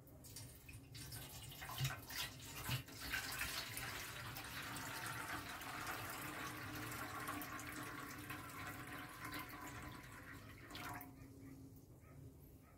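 Dark liquid poured in a steady stream from a bottle into an empty metal loaf pan. It splashes sharply on the bare pan bottom at first, then runs on into the filling pool and stops near the end.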